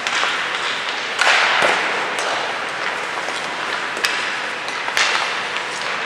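Ice hockey skates scraping across the ice, with a louder scrape about a second in, and sharp clacks of sticks on pucks about four and five seconds in.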